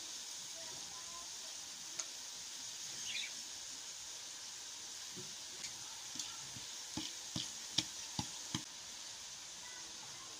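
Chopped ridge gourd tipped from a basket into a steel pot, then split moong dal poured in from a plate, with a run of sharp knocks on the pot in the second half over a steady hiss.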